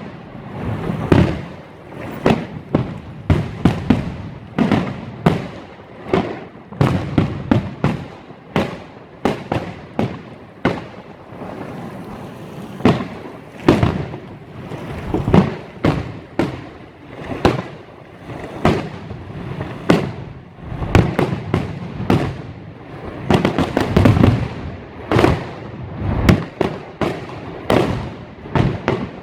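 Fireworks exploding in rapid, irregular succession, many sharp bangs a second over continuous crackling, with a brief lull about halfway through.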